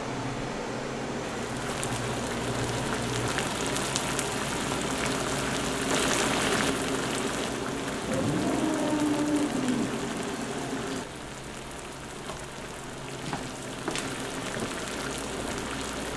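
Commercial kitchen noise: the range's exhaust hood fan runs with a steady low hum while the stove gives a continuous crackling sizzle. The sound drops in level about two-thirds of the way through.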